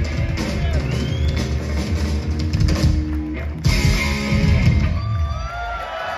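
Live rock band playing the closing bars of a song: electric guitar, bass and drum kit, loud through a club PA. A sudden crash comes about three and a half seconds in, and the sound thins out near the end as the song winds down.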